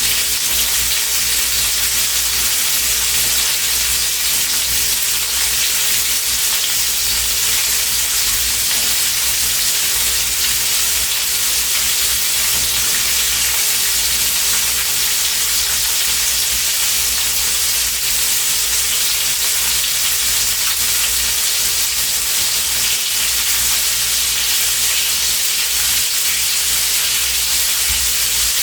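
Sausage and sweet potatoes frying in a skillet, a steady sizzle that holds through without a break.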